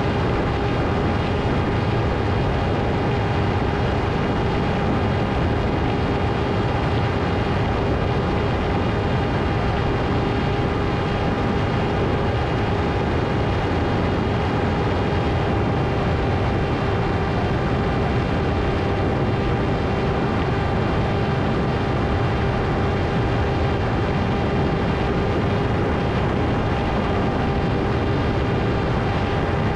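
Electric motor and propeller of a Ritewing Hardcore 38 FPV flying wing running at a steady speed: a constant whine that holds one pitch, over a rushing noise.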